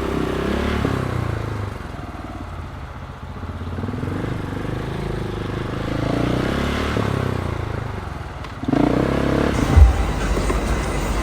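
KTM 690 SMC's single-cylinder engine through an Akrapovic exhaust, ridden on the road, its pitch rising and falling as the rider accelerates and eases off. Near the end the sound changes abruptly to a louder low rumble with a few thumps.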